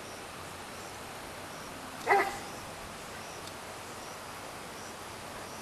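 A single short dog bark about two seconds in, over a steady background hiss.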